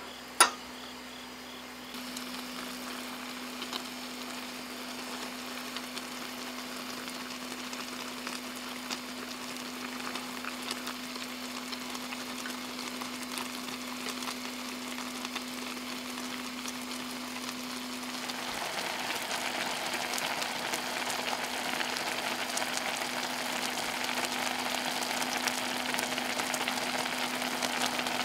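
Food frying and sizzling in a pan, a steady crackle that gets louder about two-thirds of the way through. There is a sharp click right at the start and a steady low hum underneath.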